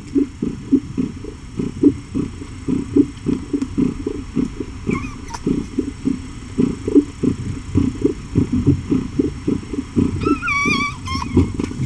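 A nursing mother cat purring loudly close to the microphone, a low, uneven pulsing of about four or five beats a second. A kitten gives a faint high squeak about five seconds in and a clearer high mew near the end.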